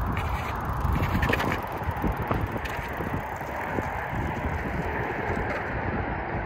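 Mountain bike rolling along a dirt singletrack trail: tyre and trail noise with scattered clicks and rattles from the bike, and wind buffeting the microphone.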